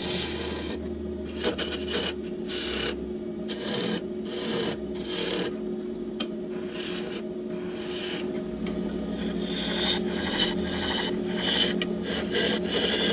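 Wood lathe running with a steady motor hum while a gouge cuts the spinning wood, a rough scraping hiss of shavings coming off. The hiss stops and starts many times as the tool is lifted on and off the wood.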